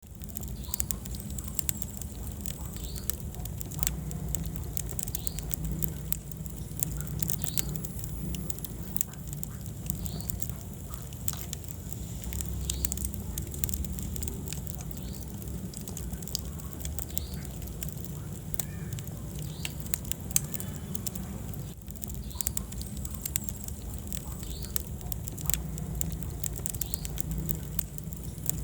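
Wood fire burning in a fireplace: a steady low rumble of the flames with frequent sharp crackles and pops, and faint short high squeaks recurring every second or so.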